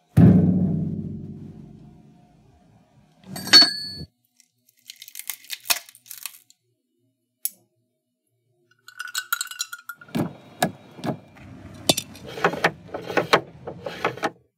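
A low thump that rings out over about two seconds, then a single sharp ringing clink. After that come scattered small clicks and a long run of clinks and taps from ice in an enamel mug.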